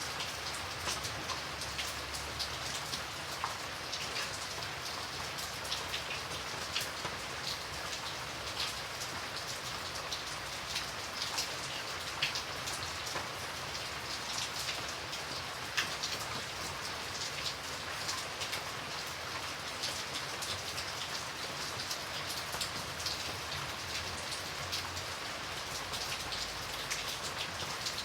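Steady rain falling, a constant hiss with many separate drops ticking and pattering on a surface.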